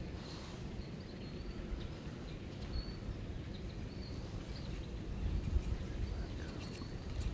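Woodland ambience: a small bird gives short high chirps every second or so over a steady low rumbling noise, which grows louder about five seconds in.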